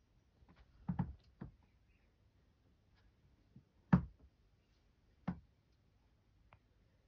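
Scattered sharp knocks and clicks: a close pair about a second in, a softer one just after, the loudest near four seconds, and another a little past five seconds.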